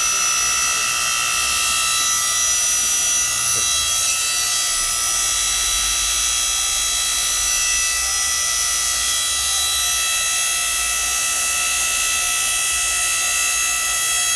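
Electric motor and hydraulic pump of a 3-horsepower, 7-ton electric log splitter running steadily, a whine with several fixed high tones over a low hum. The low hum swells for a few seconds in the middle, as the ram is worked to warm the hydraulic oil.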